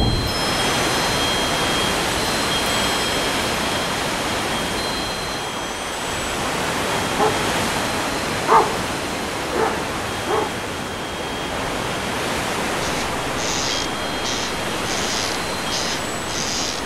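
Steady outdoor hiss with a dog barking four times, about seven to ten seconds in. From about thirteen seconds on, a run of short high chirps.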